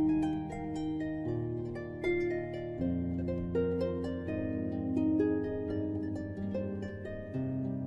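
Instrumental background music: a steady run of plucked, harp-like notes over held low chords that change every second or so.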